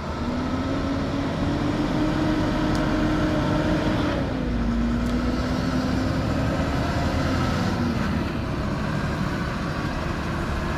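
Semi-truck pulling a double tanker trailer past, its diesel engine running steadily with a low rumble and a droning tone that drops slightly in pitch about four seconds in.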